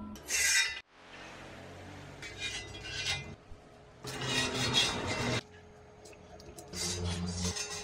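Scratchy rubbing strokes of a marker drawn by hand along a steel gas-cylinder shell, marking out a line to cut for the smoker's door. Three passes, each about a second long, with a short sharper sound about half a second in.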